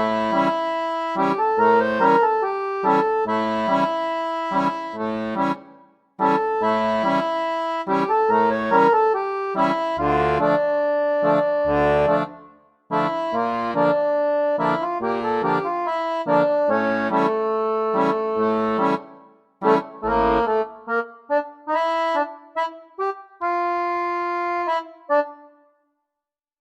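Background instrumental music: a melody of held, reedy notes over a bass line, in phrases broken by short pauses.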